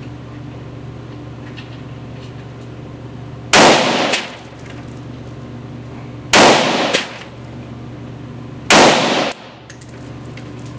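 Three single rifle shots from a TPD Steyr AUG-pattern semi-automatic rifle, about two and a half seconds apart, slow aimed fire. Each shot is very loud and echoes briefly off the walls of the indoor range.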